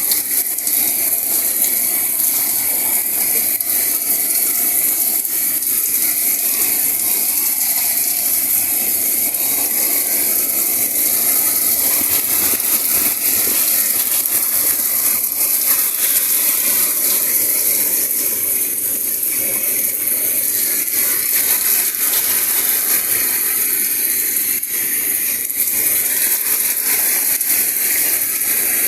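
A steady, loud hiss with a faint crackle running through it, strongest in the high range and with little low rumble.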